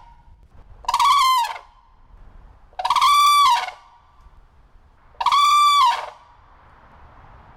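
Red-crowned crane calling: three loud, clear calls, each just under a second long and about two seconds apart. Each call rises, holds and drops in pitch at the end.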